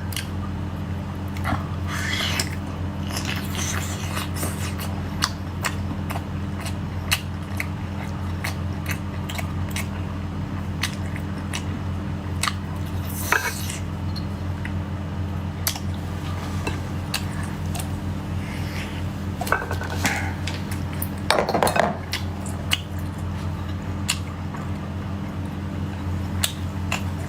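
Cutlery and dishes clicking and scraping as someone eats, with a few longer scraping or rustling sounds, over a steady low hum.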